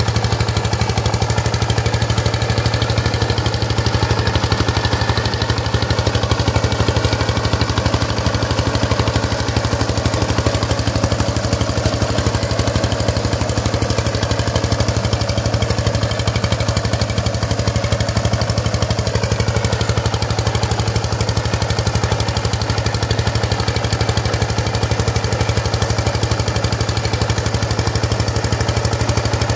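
Two-wheel power tiller's single-cylinder diesel engine running steadily and loud under load while driving a rotary cultivator through dry soil, with an even low hum that does not change.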